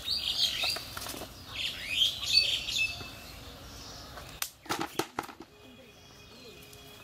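Small birds chirping in the first couple of seconds. Then, about four and a half seconds in, a short cluster of sharp rustles and slaps as a fish is worked free of a cast net on bare ground.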